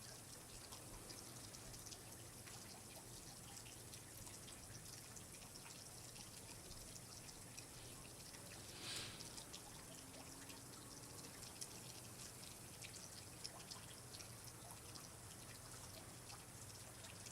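Faint water dripping and trickling, with many small scattered drips and a brief swell about nine seconds in.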